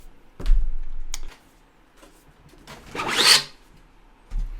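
3D-printed plastic parts of a desiccant basket and storage box being handled and fitted together: a knock about half a second in, a small click, a short scraping slide of plastic on plastic around three seconds in, and another knock near the end.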